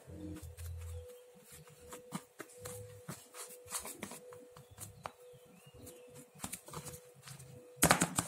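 Metal spoon tapping and scraping as it packs a crumbly almond butter mixture into a plastic-film-lined container: scattered light clicks and rustles, with one louder clatter near the end. A faint steady hum sits underneath.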